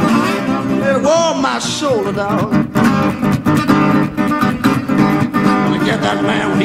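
Acoustic guitar strummed briskly and steadily, with a voice singing over it for the first two seconds before the guitar carries on alone.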